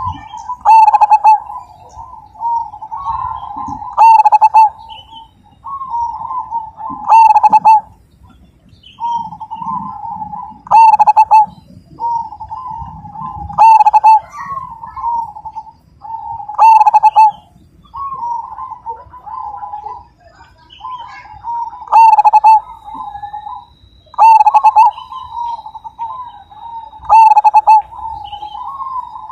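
Zebra dove (perkutut) singing its cooing song: a near-continuous run of rapid coos, with a loud, accented phrase about every three seconds.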